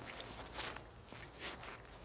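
Footsteps splashing lightly in a shallow rain puddle: two soft steps about a second apart.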